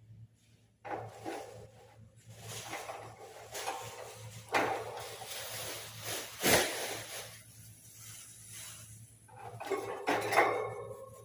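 Irregular clattering and knocking of hard objects being handled, like dishes or utensils, with one sharp, loud knock about two-thirds of the way through.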